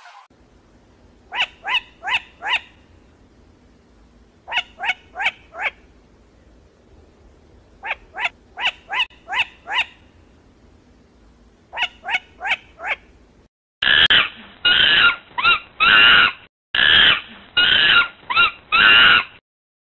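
Demoiselle cranes calling: short trumpeting calls in quick runs of four to six, a few seconds apart. About two-thirds of the way through, a louder recording begins with a run of about seven longer calls.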